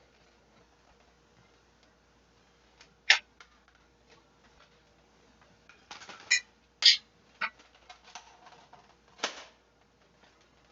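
Sharp plastic clicks and clacks of a toy foam-dart blaster being handled, likely as it is reloaded. There is one loud click about three seconds in, a quick cluster of clicks in the middle, and another near the end, with faint ticks between.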